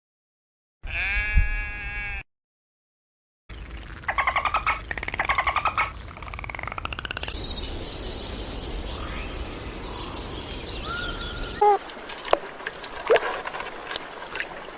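A string of different animal calls. First comes one bleat-like call lasting about a second and a half. After a short silence come rapid pulsed trilling calls and high chirps over a steady hiss, then a few sharp chirps and clicks.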